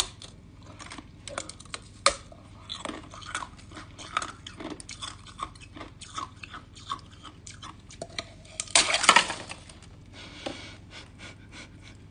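Hard ice being bitten and crunched between the teeth, a run of sharp cracks and chewing crunches, with a dense, louder burst of crunching about nine seconds in.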